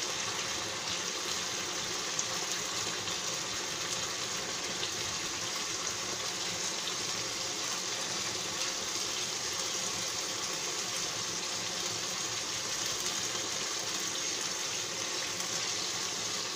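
Tilapia fish curry sizzling in a nonstick pan: a steady, even hiss.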